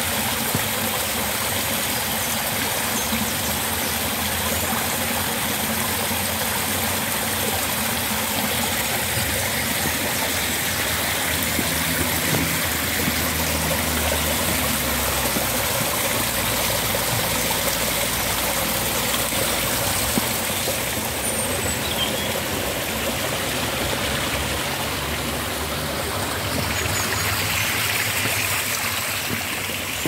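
Small rock-garden waterfalls: water spilling in thin cascades over rocks into shallow pools, a steady rush and trickle.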